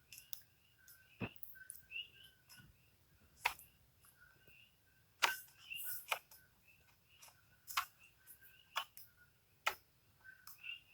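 Wooden puzzle box being twisted, its wooden parts clicking as they move: scattered sharp clicks at irregular intervals of about a second, several of them louder.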